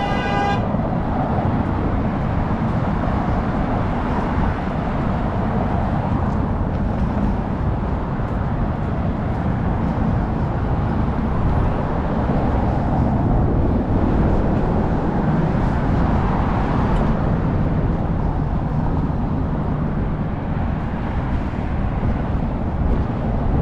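Steady street traffic noise, with a vehicle horn sounding at the start and cutting off about half a second in.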